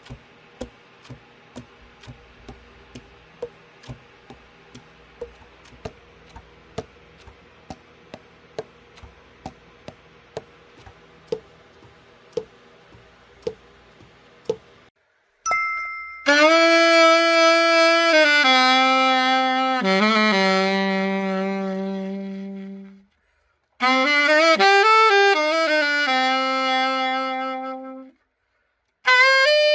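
Vintage Nova Sax AX-502 alto saxophone playing held notes in short phrases, the first stepping down in pitch, with brief breaks between phrases; it starts about halfway in. Before that there are only faint, regular ticks, a little under two a second.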